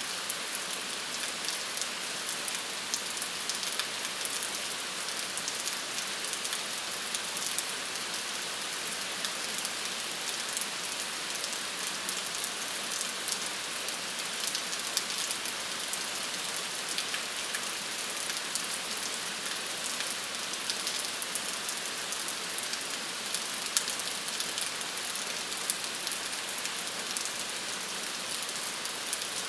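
Steady rain falling, with a dense patter of individual drops on a surface and now and then a louder drop.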